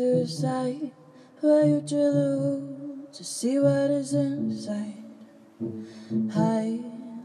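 A woman singing dreamy pop in short phrases with brief pauses, accompanied by steady low sustained notes on a Kawai MP5 stage piano.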